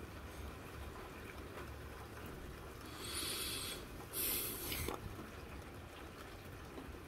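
Steady rain heard through a window glass, a soft even hiss. Two short, louder hissing bursts come about three and four seconds in.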